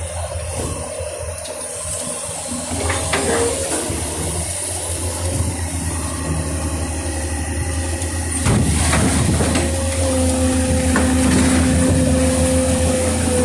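Clamshell-grab excavator at work, its diesel engine running steadily with a low drone. About eight to nine seconds in it grows louder and a steady whine joins.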